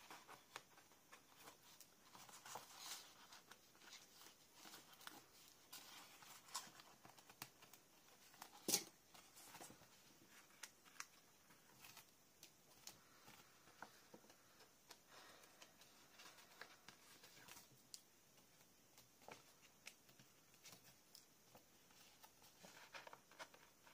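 Faint rustling, sliding and light tapping of paper sheets being handled on a craft mat, with scattered small clicks and one sharper click about nine seconds in.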